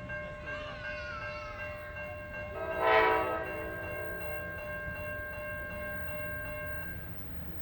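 A short blast, about a second long, of an NJ Transit ALP-45DP locomotive's unrestricted Nathan K5LA five-chime air horn. It is sounded as the train arrives, over steady high whining tones from the train that fade out near the end.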